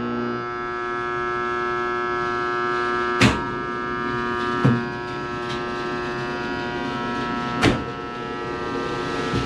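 A machine running with a steady, many-toned hum, broken by sharp clunks about three, four and a half and almost eight seconds in.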